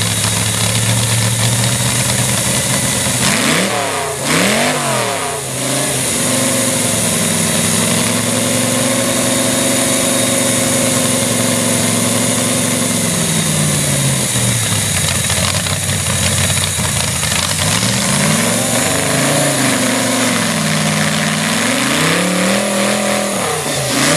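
Large chainsaw engine running loudly, revving sharply twice about four seconds in, then holding a steady speed; its pitch sags and climbs again several times in the second half.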